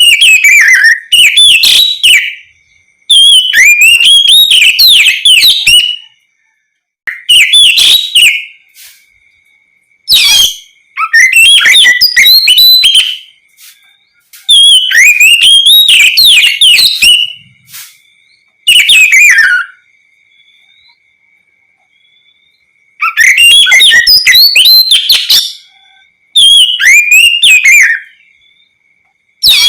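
Oriental magpie-robin (kacer) singing loudly in rapid bursts of warbling, whistled phrases, each a second to three long, with short pauses between them.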